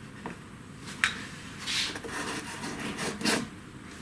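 Packing material and parts rubbing and scraping as they are handled in the box. A sharp click comes about a second in, and two louder scrapes follow, near two and three seconds in.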